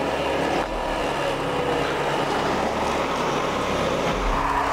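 Car driving past on a road: a steady rush of engine and tyre noise.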